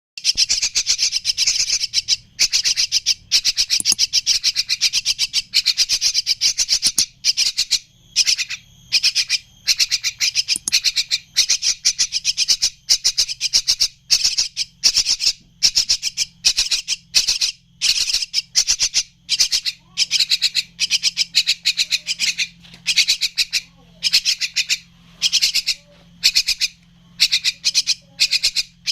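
Young Javan mynas calling in harsh, buzzy rasps, in bursts of about a second, one after another with short gaps.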